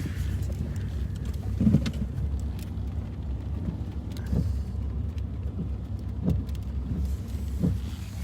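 Car running, a steady low rumble of engine and road noise heard from inside the cabin, with soft knocks about once a second.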